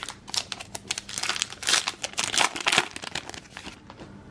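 Plastic trading card pack wrapper crinkling, rustling in quick crackles as it is torn open and handled, for about three and a half seconds.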